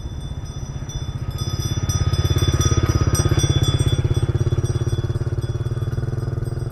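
A motorcycle engine running as it passes, a low, fast-pulsing note that grows louder about two seconds in and then eases off a little.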